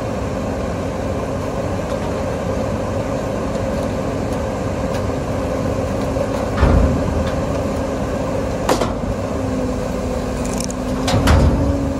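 Mack MR garbage truck's diesel engine running steadily behind a rear-loading packer as a steel dumpster is tipped into the hopper. Three heavy knocks about a third, two thirds and nine tenths of the way through come as the tipped container is shaken out.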